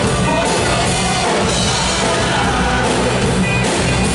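Live rock band playing at a steady loud level: electric guitar and drum kit with a man singing.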